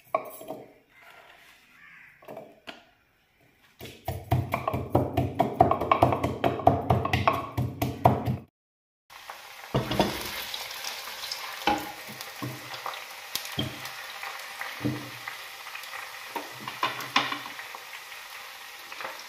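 Sliced onions frying in oil in an earthenware handi (clay pot), a steady sizzle, with a spatula stirring and knocking against the pot. Before that, for a few seconds, a hand-turned chopper jar rattles fast and evenly as it crushes ginger and garlic.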